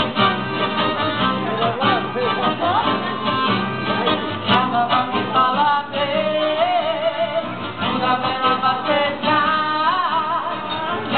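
Live folk band playing Transylvanian dance music: a woman sings a melody with vibrato into a microphone over strummed acoustic guitars and an accordion.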